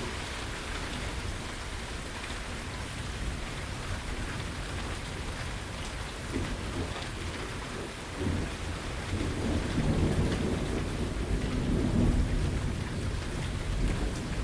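Steady rain falling, with a long roll of thunder that starts rumbling about halfway through and is loudest near the end.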